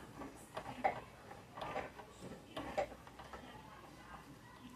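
Irregular light clicks and knocks from handling a domestic sewing machine and its fabric, with no motor running.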